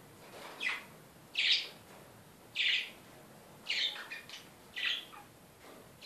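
Caged pet parakeets giving short, repeated chirps, about one a second, with a few quicker ones bunched together around four seconds in.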